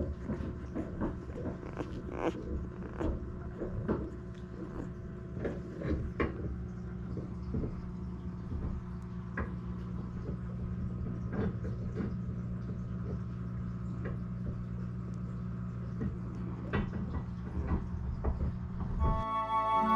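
Newborn basset hound puppies making many short, scattered squeaks and snuffles as they shift about, over a steady low hum. Music comes in just before the end.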